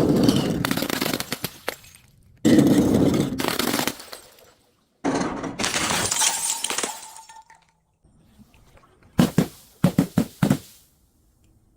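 Glass bottles being crushed and shattering: three long crunching breaks, the third ending with a brief ring of glass, then a quick run of about six sharp cracks near the end.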